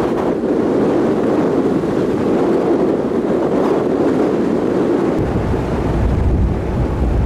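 Steady rush of wind and churning wake on the open deck of a car ferry under way, with wind buffeting the microphone from about five seconds in.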